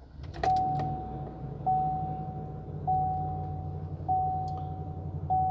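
A 6.0-litre gas V8 in a Chevy Silverado 2500 starts about half a second in, catching at once and settling into a steady idle, heard from inside the cab. Over the idle a dashboard warning chime dings five times, about once every 1.2 seconds.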